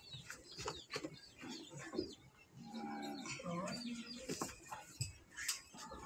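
A cow moos once, a long call starting about three seconds in, while small birds chirp.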